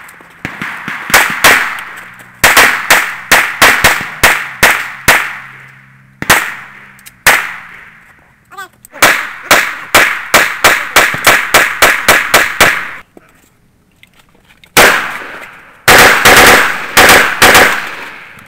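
Strings of gunshots fired in quick succession, several a second, in three main volleys with short pauses between. Each report trails off in a brief echo.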